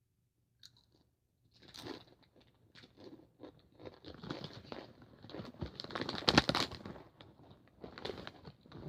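Takis rolled tortilla chips being crunched and chewed, with the snack bag crinkling, in irregular crackly bursts that start after about a second and a half of quiet.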